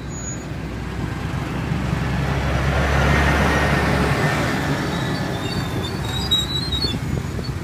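A motor vehicle passing close by on the street, its engine and tyre noise building to a peak about three seconds in, then fading.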